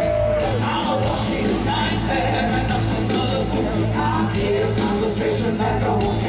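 Live band playing a rock song with a steady bass line and drums, and a woman singing and calling out over it through the PA.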